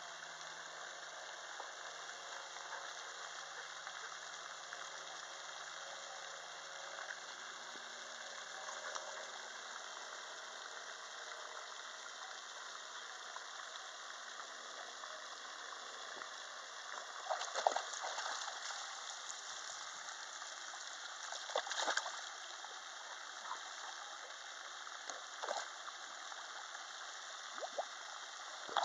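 Dog swimming in pond water, with soft sloshing and a few short splashes in the second half as it paddles in close, over a steady hiss.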